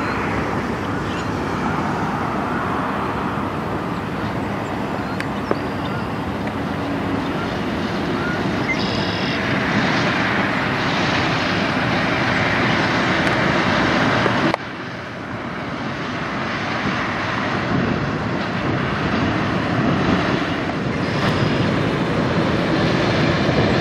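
Kenworth semi truck hauling a livestock trailer drives by, its diesel engine and tyre noise swelling as it passes close. The sound drops suddenly about fifteen seconds in and then builds again as the truck comes on once more.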